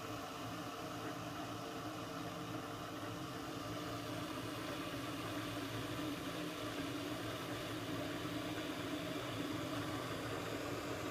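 Arçelik Turkish coffee machine brewing: a steady hum and hiss that slowly grows louder.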